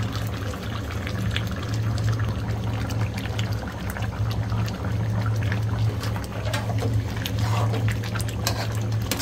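Thick curry gravy simmering in a steel kadai, bubbling and popping in small irregular pops over a steady low hum. Near the end a metal spatula starts stirring through the pan.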